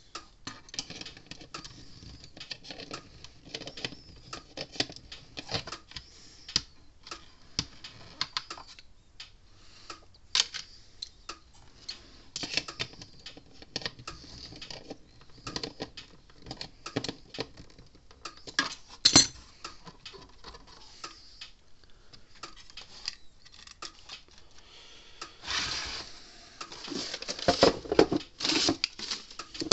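Light, irregular clicking and clinking of small metal parts and hand tools being handled while a fence charger is put back together, with a denser run of clatter near the end.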